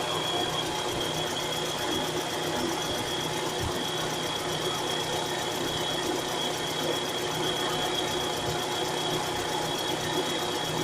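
Mitsubishi Carisma GDI four-cylinder engine running with a steady, fast knocking, a noise that has come on whenever the engine is started since the timing belt was replaced. A steady high-pitched whine runs along with it.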